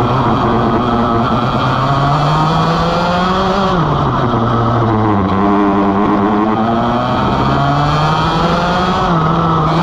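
Vortex ROK GP 125cc two-stroke kart engine, heard onboard, revving hard as the kart laps the track: the pitch climbs on the straights, drops sharply about three and a half seconds in as the driver lifts and brakes for a corner, then climbs again on the way out, with another short dip near the end.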